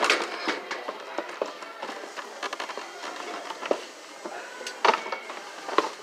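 Knocks and rattling of a plastic toy chainsaw being handled and pushed back into its packaging, over faint background music.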